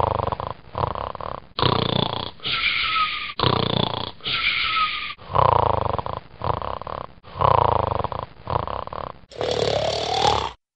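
Snoring: a run of harsh snores in pairs, each one starting and cutting off abruptly, about one pair every two seconds. Near the end a differently recorded snore rises in pitch.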